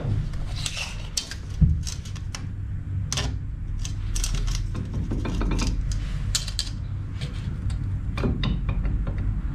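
Steel tape measure being pulled out and laid across metal frame plates, with scattered clicks and short rattles from the tape and the parts being handled, over a low steady hum.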